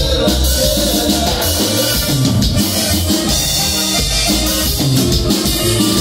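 Loud dance music with drums and a bass line moving in short steps, playing continuously with a steady beat.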